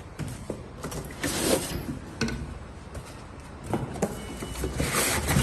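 Packaging and parts being handled as an item is taken out of its box: scraping and rustling in two longer stretches, about a second in and near the end, with scattered knocks and clicks between.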